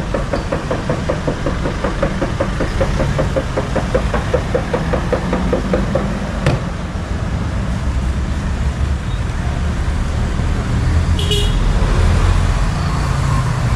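Nissan Urvan ambulance van's engine idling with a steady low rumble, a fast regular pulsing over the first six seconds. A sharp click comes about six and a half seconds in, and a short high beep near eleven seconds.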